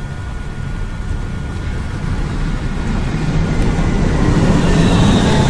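Engine noise of a passing vehicle, growing steadily louder as it approaches.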